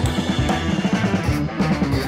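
Background music with a drum-kit beat.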